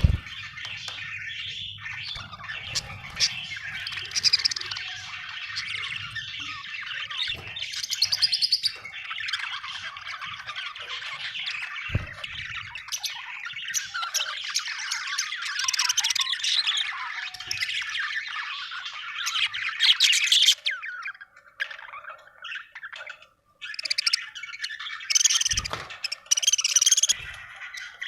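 Budgies (budgerigars) chattering: a dense, rapid run of warbles, chirps and squawks that thins out briefly past the middle and then picks up again, with a couple of short low thumps.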